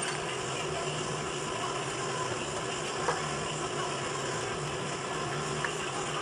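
Steady mechanical hum in the background, with two faint clicks from hand tools working on a small-block Chevy starter motor being taken apart, about three seconds in and again near the end.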